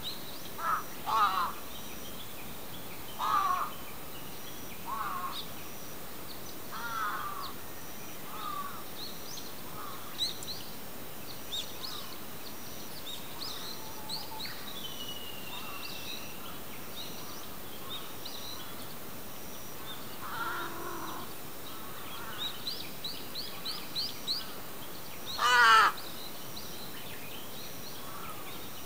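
Crows cawing in short calls scattered throughout, one much louder caw about three-quarters of the way through, with small birds chirping and trilling higher up.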